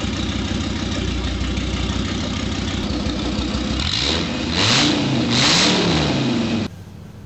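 V10 engine running on a test stand, idling steadily, then revved twice about four and five seconds in, each rev rising and falling in pitch. The sound cuts off abruptly near the end.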